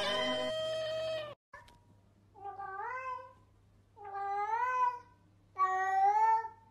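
Domestic cats meowing: one long drawn-out meow that cuts off about a second and a half in, then, after a short pause, a tabby cat meowing three times, each meow rising and falling in pitch, the last two louder.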